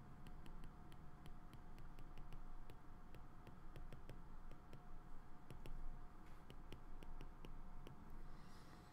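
Stylus tip tapping and clicking on an iPad's glass screen during handwriting: an irregular run of light clicks, over a faint steady tone.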